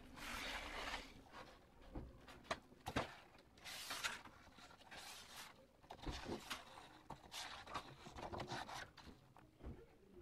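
Sheets of wet-and-dry sandpaper and their card-backed packaging being handled: faint, irregular rustling and scraping in short bursts, with a few light taps.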